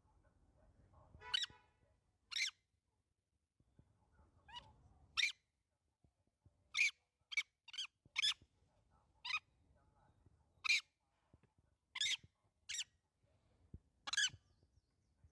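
Baby macaque giving short, high-pitched cries, about a dozen at irregular intervals.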